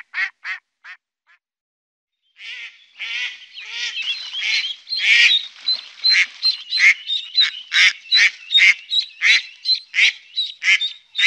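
Mallards quacking. A run of quacks trails off in the first second, and after a short silence a dense, overlapping chorus of quacking from several ducks starts about two and a half seconds in and runs on, with short high notes mixed in.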